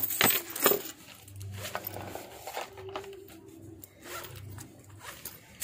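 Zipper of a fabric crossbody bag being pulled, with the bag rubbed and handled; the loudest strokes come in the first second.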